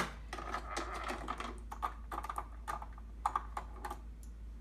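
Small clicks and rattles of a Brother sewing machine's plastic parts being handled as the bobbin compartment is opened, thinning out after about four seconds.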